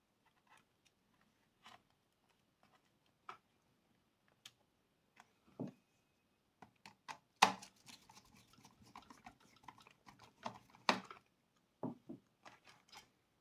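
Faint handling noise of intercom wiring and small tools: scattered light clicks and taps, growing busier with rustling in the second half, with a couple of sharper clicks.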